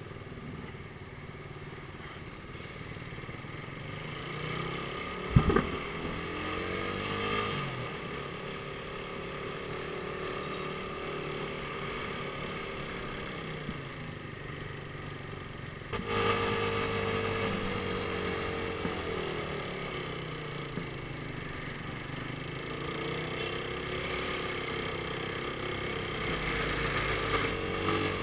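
Suzuki Raider R150 single-cylinder engine riding in traffic, its pitch rising and falling again and again with throttle and gear changes. There is one sharp knock about five seconds in, and the engine gets suddenly louder about two-thirds of the way through.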